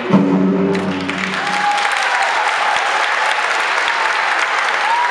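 The skating program's music ends on a held final chord, and audience applause breaks out about a second in and carries on. A thin high tone comes and goes over the clapping.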